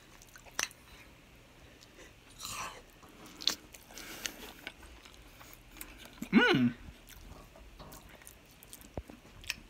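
Someone eating mushy food from a bowl with a metal spoon: quiet chewing and a few sharp spoon clicks against the bowl, with a brief vocal sound about six seconds in.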